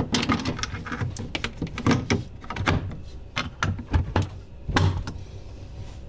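Hard plastic clicks and knocks as a Kenmore replacement refrigerator water filter is pushed and twisted into the fridge's filter housing and the housing cover is closed. It is a string of irregular sharp clacks, the loudest about two seconds in and again near the end.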